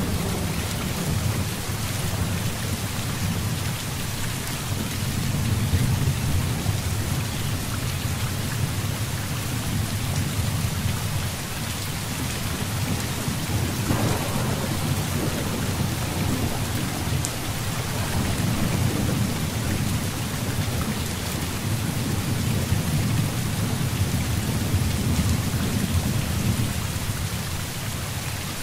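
Heavy rain pouring steadily, with thunder rumbling low underneath and swelling and fading several times. A sharper crackle of thunder comes about halfway through.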